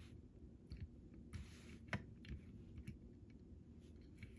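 Faint handling sounds of a die-cast toy truck and its plastic sliding bed: scattered light clicks, a brief scrape about a second and a half in, and a sharper click about two seconds in.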